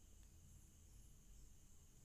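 Near silence: a faint steady hum and hiss of the recording's background noise.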